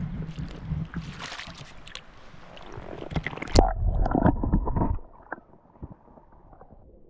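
Knocks, clicks and rustling from handling on a fishing kayak, with a louder low rumble from about three and a half seconds in that stops suddenly about a second and a half later.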